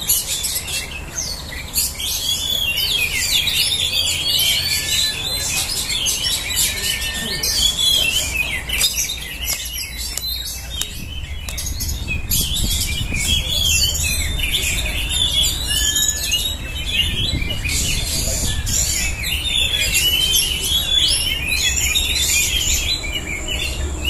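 Many caged Oriental magpie-robins (kacer) singing at once in competition: a dense, unbroken chorus of overlapping rapid chirps, whistles and trills.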